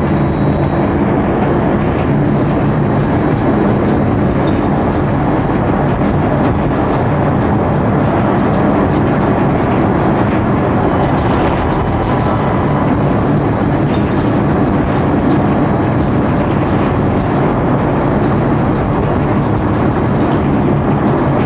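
Tram running along the street, heard from inside the car: a steady rumble of wheels on rails with a low, even hum underneath.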